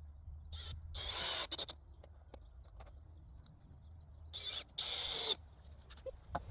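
Power drill running in two short bursts of about a second each, driving fasteners into the greenhouse frame, over a steady low rumble.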